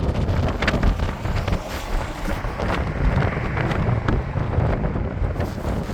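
Strong wind buffeting the microphone: a heavy, gusting rumble that rises and falls unevenly, with brief crackles.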